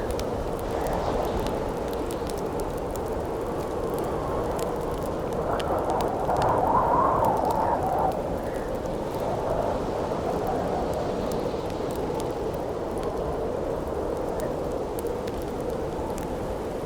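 Howling wind, a steady rush that swells into a gust around six to eight seconds in, over the scattered pops and crackles of a wood campfire.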